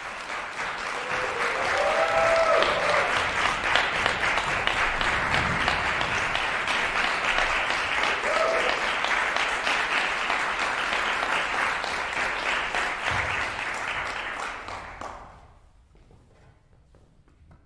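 Audience applauding steadily, the clapping dying away near the end to a quiet hall.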